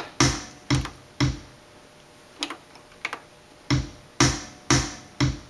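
Roland Juno-Gi rhythm pattern looping in playback: a drum-machine kick drum on four even beats about half a second apart, with a gap of one measure holding two lighter hits, then four more kicks.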